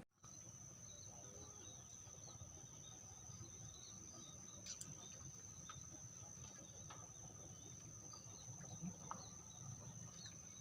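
Faint, steady high-pitched insect trill, with a few small chirps scattered over it.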